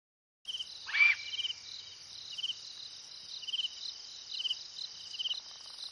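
Evening chorus of crickets and other insects: a steady high trill with a separate chirp repeating about once a second, starting about half a second in. About a second in, a brief rising call cuts across it, the loudest sound.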